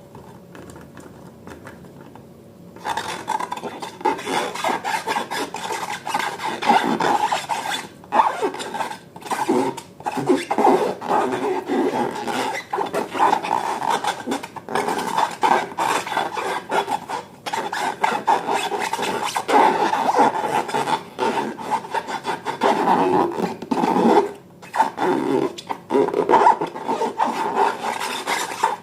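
Rubbing and rasping handling noise of slime and balloons being worked by hand. It begins about three seconds in, continuing irregularly with frequent short breaks.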